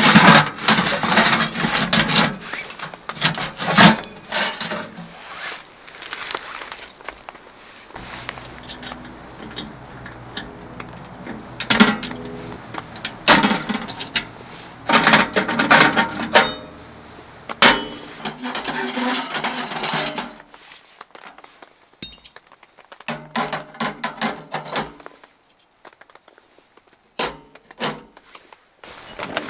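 Metal clanks, scrapes and rattles from a KingCamp steel tent stove being handled and dismantled by hand: its drawer pulled, its chimney collar and top plates lifted off and set down. The sounds come in irregular busy bursts, thinning to a few sharp clicks near the end.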